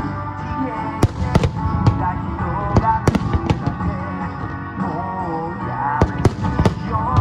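Aerial firework shells bursting with sharp bangs, in quick clusters of three or four, over a song playing loudly.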